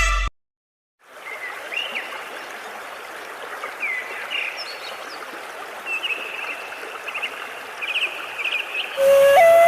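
Running stream with small birds chirping and trilling over it, starting after a second of silence. A flute melody comes in near the end.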